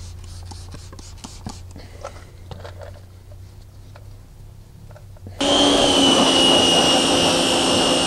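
Faint scratchy scrubbing of steel wool on a corroded bare aluminum wheel. About five seconds in a pressure washer starts abruptly, a loud steady hiss of water spray with a high motor whine, rinsing the acid wheel cleaner off the wheel.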